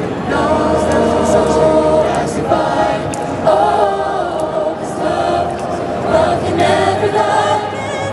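Mixed-voice a cappella choir singing sustained chords with no clear words, amplified through PA speakers.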